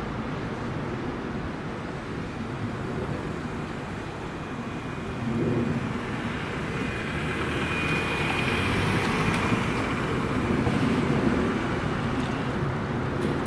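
Steady motor-vehicle engine and traffic noise, growing louder about five seconds in.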